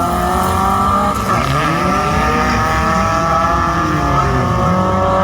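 Several car engines revving and running at once, their pitches rising and falling as they work through the gears, typical of cars racing on a track.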